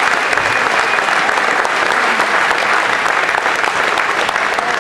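A large crowd applauding steadily, a dense patter of many hands clapping.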